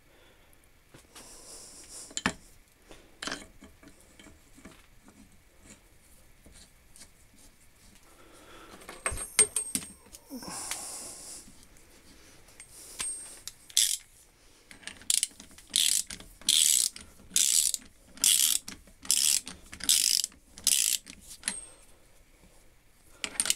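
Fitting and tightening a large steel bolt with a brass washer: a few metal clinks and knocks as it goes in, then a socket ratchet clicking in regular strokes a little under a second apart through the second half.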